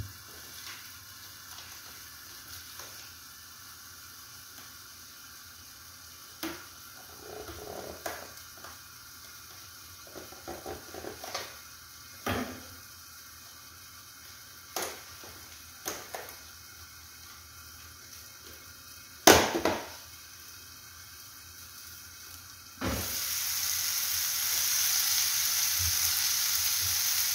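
Scattered clicks and knocks of a plastic food container being handled and opened, one sharp click the loudest. Near the end a frying pan of tomato, onion and spices starts sizzling suddenly and keeps up a loud, steady sizzle.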